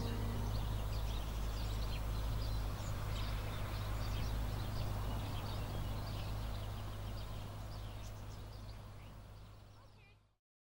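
Outdoor meadow ambience: many small birds chirping over a steady low hum, fading out to silence near the end.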